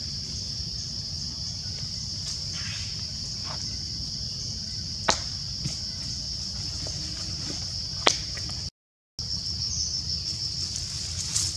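Steady high-pitched drone of insects over a low rumble, with two sharp clicks about five and eight seconds in. The sound cuts out for about half a second shortly after the second click.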